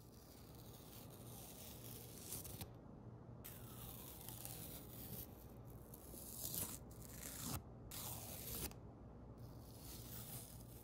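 Masking tape being peeled off the paper edges of a small painting, strip after strip: long crackly rips with short pauses between them.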